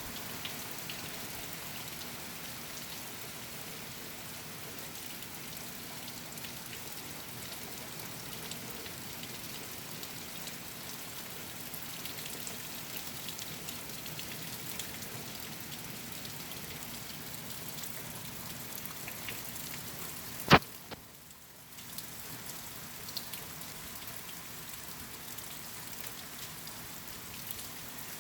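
Heavy rain falling steadily, with scattered drops ticking on nearby surfaces. About two-thirds of the way through comes a single sharp click, the loudest thing here, and the rain sound drops away for about a second before returning.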